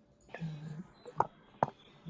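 Two sharp clicks about half a second apart, after a brief low murmur of a voice.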